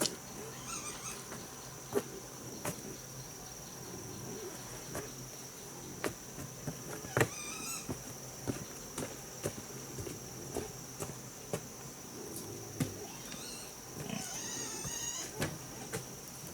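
Steady high-pitched insect drone, with scattered light knocks and short warbling animal calls at about seven seconds in and again near the end.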